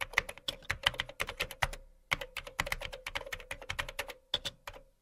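Typing sound effect: rapid keystroke clicks, several a second, with a short pause about two seconds in, over a faint steady hum.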